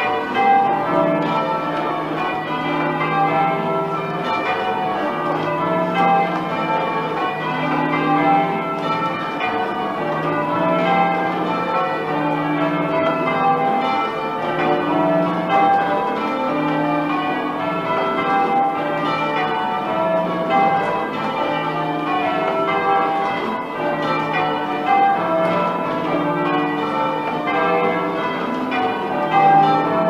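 Church tower bells being change-rung, struck one after another in an even, unbroken stream of overlapping tones.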